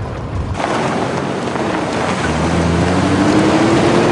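Four-wheel-drive rescue vehicle driving fast: dense road and wind noise that swells about half a second in, with an engine note rising slowly as it accelerates in the second half.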